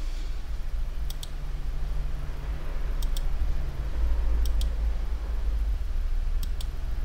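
Computer mouse clicking in four quick double clicks, spaced a second or two apart, over a steady low electrical hum.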